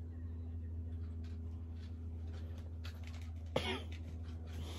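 Quiet room with a steady low hum and faint scattered clicks. About three and a half seconds in, a person makes one short vocal sound with a falling pitch.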